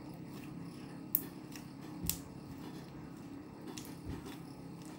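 A few scattered light clicks and knocks, the loudest about two seconds in, over a steady low hum: small objects being handled.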